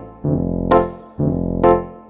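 Background music: piano or electric keyboard playing chords in a steady rhythm.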